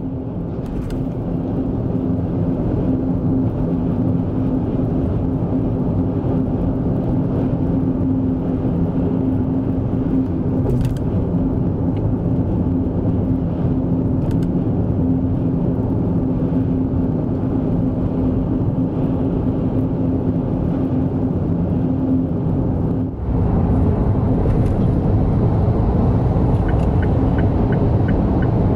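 A car driving at speed: steady road and engine rumble with a constant hum. The sound changes abruptly about 23 seconds in, and a light regular ticking starts near the end.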